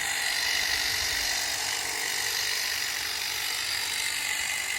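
Ego cordless telescopic hedge trimmer running steadily, its reciprocating blades giving a high, even whine.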